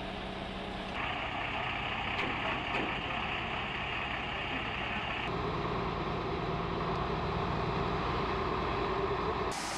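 Diesel engine of a Liebherr mobile crane running steadily. Its tone changes abruptly about a second in and again about five seconds in.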